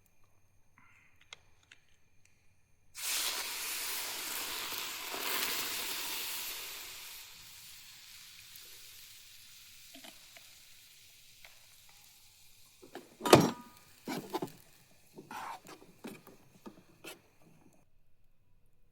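Milk poured into a hot pan of dry-roasted vermicelli (sevai) sizzles loudly, starting suddenly about three seconds in and dying away over several seconds. A few sharp knocks and clinks of a utensil against the pan follow near the end.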